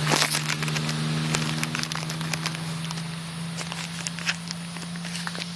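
Plastic card holders and packaging crackling and clicking as they are handled, the loudest crackle just at the start. Under it runs a steady low hum.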